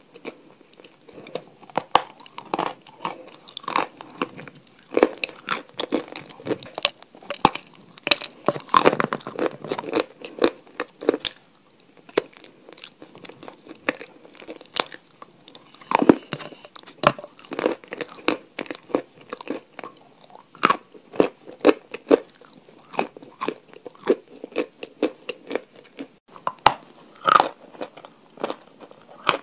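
Close-miked crunching bites and chewing of crisp food, a rapid, irregular run of sharp crackling crunches throughout.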